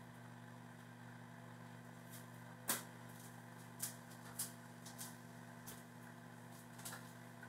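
Zucchini frying in a pan of oil, a faint steady sizzle over a low steady hum, with a few light clicks of dishes and utensils being set on a table, the sharpest nearly three seconds in.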